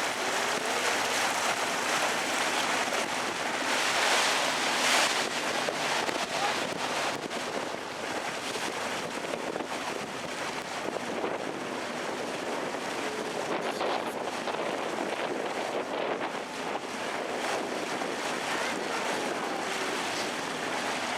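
A canal tour boat under way: a steady rush of water along the hull mixed with wind on the microphone, swelling briefly about four seconds in.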